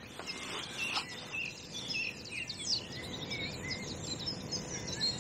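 Several songbirds singing at once in a dawn chorus, many overlapping chirps and trills over a low, steady background hiss.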